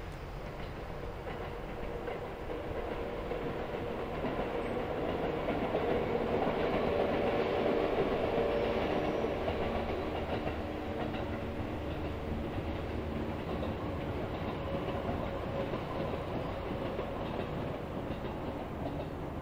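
Seibu 4000 series electric train running past on the line, wheels clattering over the rail joints. It grows to its loudest about 8 seconds in, then slowly fades as the train moves away.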